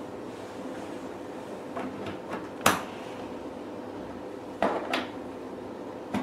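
Handpiece connectors being plugged into the front-panel sockets of a hydra facial machine: a handful of short plastic clicks and knocks, the loudest about two and a half seconds in, over a faint steady hum.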